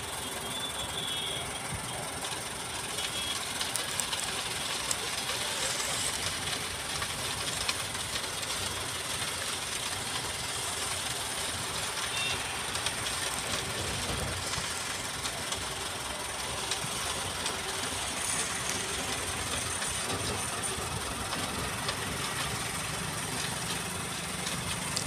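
Concrete transit mixer truck's diesel engine running steadily, with a steady hiss over it.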